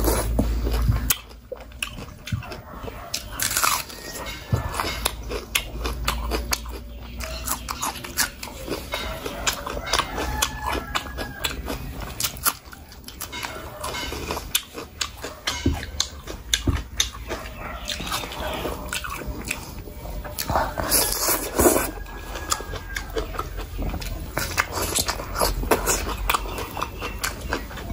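Close-miked wet chewing and lip smacking as mouthfuls of curry, meat and rice are eaten by hand, a dense run of sharp mouth clicks.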